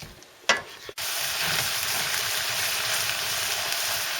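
Minced pork and grated onion sizzling steadily as they brown in a frying pan. The sizzle starts abruptly about a second in.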